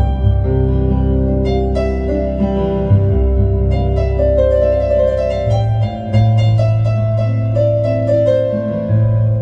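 Piano improvisation: deep bass notes held for several seconds under quick repeated notes and chords higher up, the struck notes coming thickest in the middle.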